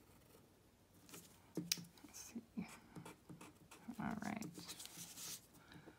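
Faint pencil strokes scratching on paper with a few soft taps of pencil and paper being handled, then about four seconds in a pencil's rubber eraser scrubbing the paper to remove a drawing mistake.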